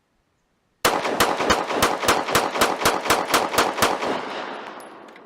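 A 9mm Glock 43 pistol fired rapidly through an extended 12-round ETS magazine: about thirteen shots at roughly four a second, with the sound dying away after the last one. The string runs without a jam.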